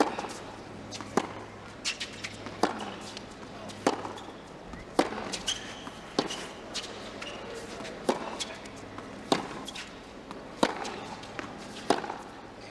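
A tennis ball is struck back and forth with rackets in a baseline rally on a hard court, with a sharp hit about every second and a quarter. A low, steady background murmur runs beneath the hits.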